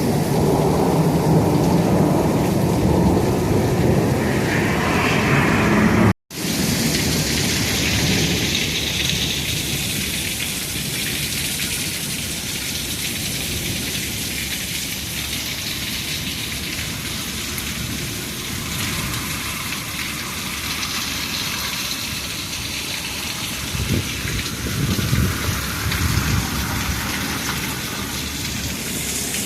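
Heavy rain from a thunderstorm squall line pouring steadily, with a rumble of thunder in the first few seconds and again near the end. The sound cuts out for an instant about six seconds in.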